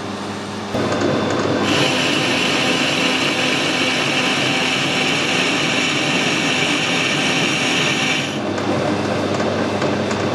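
Metal lathe running, its noise stepping up about a second in. From about two seconds to eight seconds there is a steady high hiss of the tool taking a light spring cut, a repeat pass at the same setting. The hiss stops near the end while the lathe keeps running.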